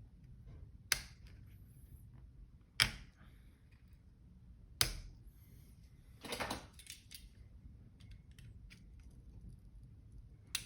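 Sharp clacks of small hard parts and tools being put down and handled on a workbench: three distinct clacks about two seconds apart, then a brief rustle and scrape about six seconds in, with faint ticks and taps between.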